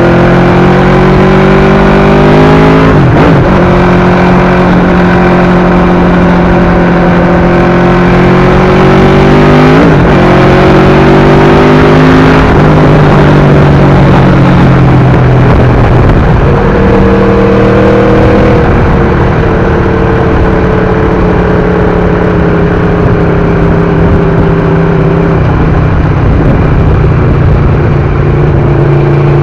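Aprilia RSV4 RR's 1000 cc V4 engine through an SC-Project exhaust, loud, on the move: a steady engine note that drifts slowly in pitch, broken several times by quick jumps in pitch as the rider changes gear or throttle.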